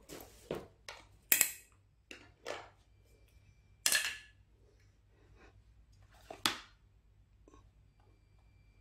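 About five sharp knocks and clicks spaced a second or more apart: hands setting down and handling a laptop, a charger adapter and a power bank with its cable on a desk mat.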